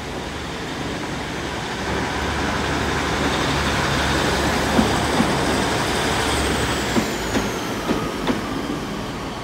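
Diesel multiple-unit train moving through the station, its engine hum steady and the train noise growing louder over the first few seconds, then easing off, with a few sharp clicks of wheels over rail joints in the second half. Steady rain hiss behind it.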